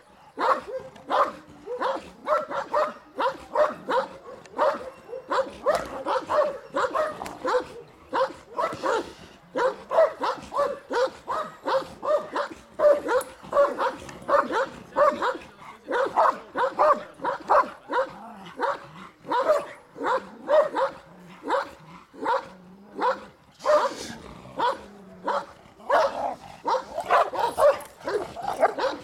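Caucasian shepherd dog barking repeatedly, about two barks a second without a break, at a decoy in a bite suit during bite-work training.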